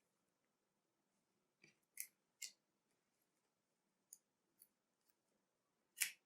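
A few short, light clicks and snaps of trading cards being handled and laid on a table, the loudest near the end, with near silence between them.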